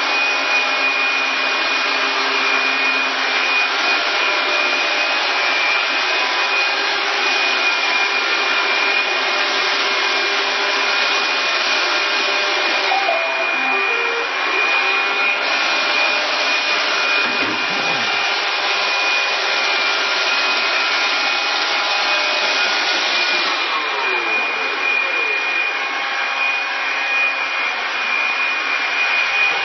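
iRobot Scooba 5800 floor-scrubbing robots and a Roomba 550 robot vacuum running together: a steady whir of motors and brushes with a high, constant whine.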